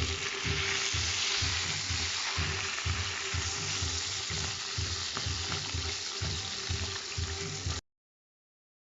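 Diced potatoes frying in hot oil in a pot, a steady sizzle. It cuts off suddenly near the end.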